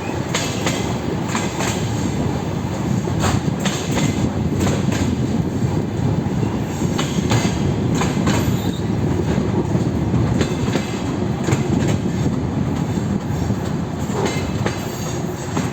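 DR1A diesel railcar running along the track: a steady rolling rumble, with the wheels clacking over rail joints in irregular groups of sharp clicks.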